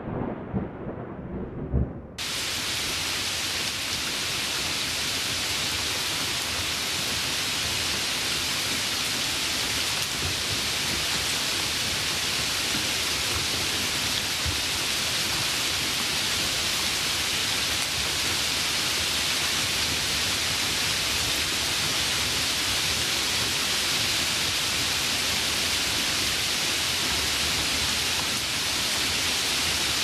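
Low rumble of thunder, cut off abruptly about two seconds in by a steady, even hiss of falling water that holds unchanged from then on.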